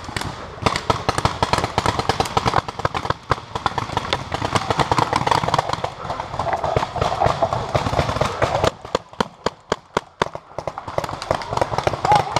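Paintball markers firing rapidly across the field, a dense crackle of sharp pops. It thins to scattered single shots about nine seconds in, then picks up again near the end.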